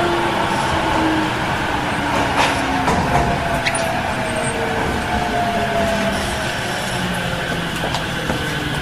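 Tokyo Metro Series 05N train with a Mitsubishi IGBT-VVVF (IPM) inverter: the motor whine slides slowly down in pitch as the train loses speed, over steady wheel and rail running noise, with a couple of sharp clicks.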